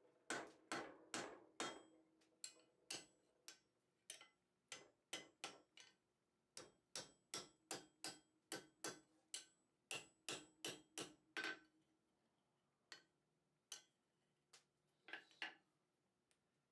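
Hand hammer striking a hot wrought-iron bar on an anvil, bending the bar's end round into a closed loop: a quick, even run of blows about two to three a second, some with a faint ring from the anvil. The blows stop about eleven seconds in, followed by a few spaced taps near the end.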